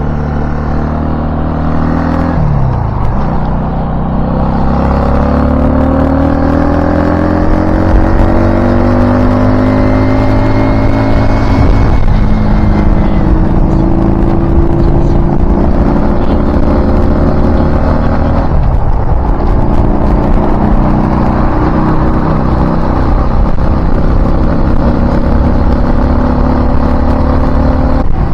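A vehicle's engine accelerating through the gears. Its pitch climbs steadily and drops sharply at each upshift, about two and a half, twelve and nineteen seconds in, then climbs slowly again.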